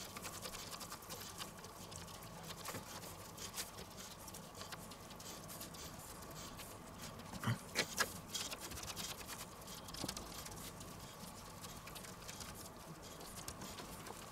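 Gloved hands patting and pressing raw minced meat flat on a wooden cutting board: faint, irregular soft pats and squishes, with a few louder taps about halfway through.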